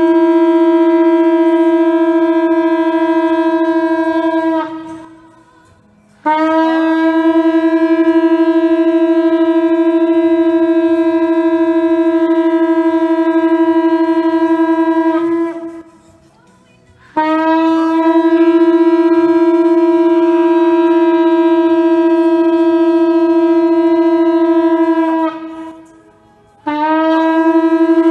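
Shofar sounded in long, steady blasts on one note: a blast ending about five seconds in, two more lasting about nine and eight seconds, and a fourth starting near the end. Each blast slides up into its note and sags as it stops.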